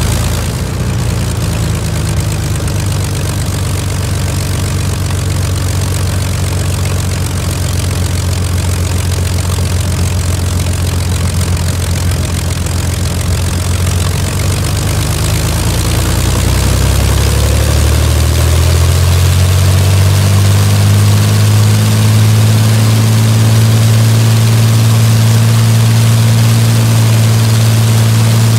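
Rolls-Royce Merlin 22 V12 aero engine ground-running with its propeller turning, first at a steady idle. About halfway through it speeds up over a few seconds, the pitch rising, and then runs steadily at the higher speed, slightly louder.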